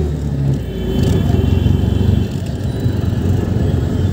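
A motor vehicle engine running close by, a steady low note, amid road traffic.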